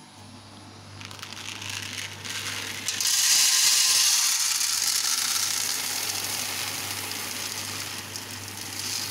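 About 3 kg of green Robusta coffee beans being poured from a plastic basin into the round steel pan of a coffee roaster. It makes a dense rushing rattle that builds from about a second in, is loudest from about three seconds, then slowly eases. A steady low hum runs underneath.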